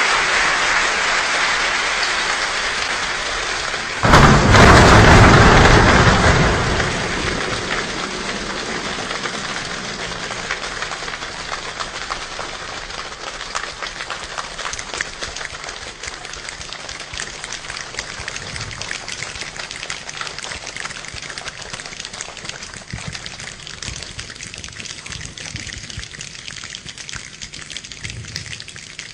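An imitated rainstorm made without instruments: a dense patter like heavy rain, a loud thunder-like rumble about four seconds in, then the patter thinning to scattered clicks and fading away.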